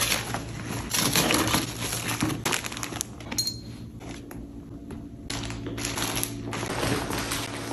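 Rustling and crinkling of a blue woven-plastic IKEA shopping bag and the paper and plastic packaging inside it as items are handled and lifted out, with small clicks and knocks. It goes quieter for a moment a little before the middle, then resumes.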